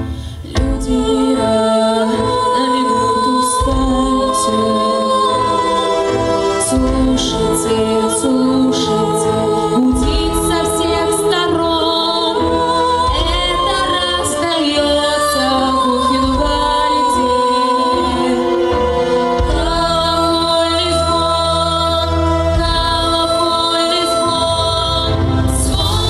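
Two women singing a duet into microphones over a recorded orchestral backing track with a pulsing bass line, the voices held in long wavering notes.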